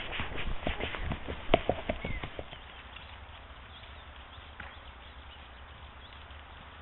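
Hooves of a gaited horse striking a dirt track, heard close up from the saddle in a quick, uneven run of beats. The beats stop about two and a half seconds in, leaving only a faint low hum.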